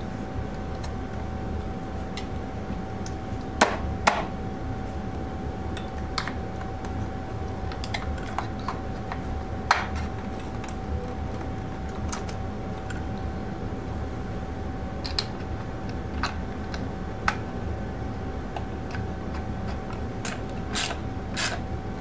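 Scattered clicks and light knocks of motorcycle wiring, connectors and battery cables being handled and fitted by hand in the frame, over a steady hum with a faint constant whine.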